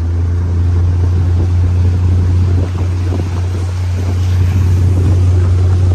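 Steady low drone of a vehicle's engine under way, coming in suddenly at the start, with wind noise on the microphone.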